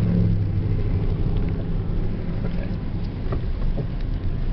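Car cabin noise while driving: a steady low hum of engine and tyres on the road.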